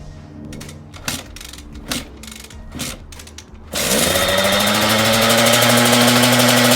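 KTM 85 SX two-stroke single-cylinder engine firing up after its top-end rebuild: a few scattered clicks, then about four seconds in it catches suddenly, its pitch rising quickly before it settles into a steady, loud, buzzing run.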